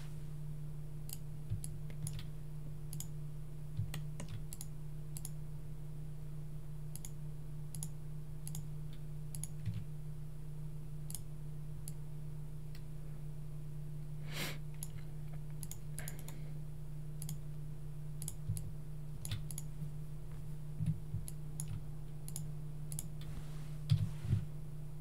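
Scattered, irregular computer mouse and keyboard clicks over a steady low hum.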